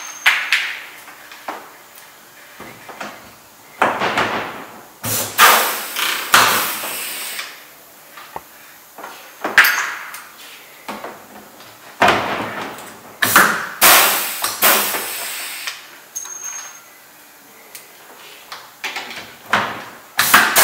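Pneumatic pop-rivet gun setting large-flange rivets into a plastic portable-restroom roof: about ten sharp pulls at irregular gaps of one to four seconds, each a sudden snap that dies away quickly.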